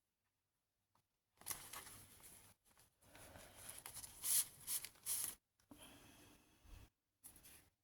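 Pages of a handmade paper junk journal being handled and turned, dry paper rustling and brushing in several bursts after about a second and a half of silence.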